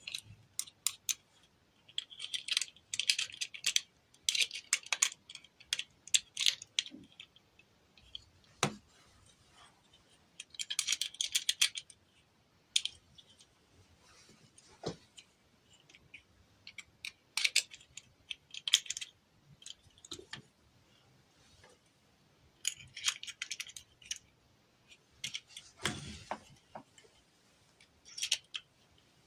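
Close handling of small plastic toys and packaging: bunches of light clicks and crackles coming and going, with short pauses between them.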